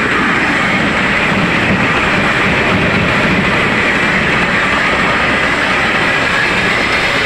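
Engine-driven cocopeat thresher running steadily, its machinery clattering as it shreds coconut husks into coir fibre and cocopeat.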